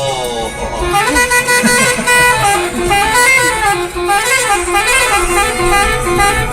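Bus telolet horn, a set of musical multi-tone horns, playing a quick up-and-down melody of stepped notes after a short sliding tone at the start.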